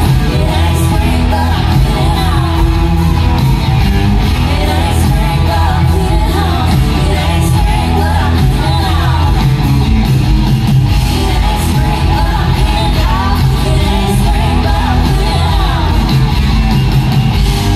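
Live country band playing loud in a large hall: two women singing into microphones over a drum kit and electric guitars.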